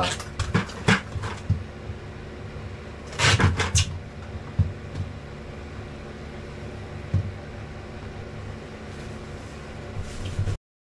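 A steady low mechanical hum runs under scattered handling knocks, with a louder burst of clatter about three seconds in and another single knock later. It cuts off abruptly just before the end.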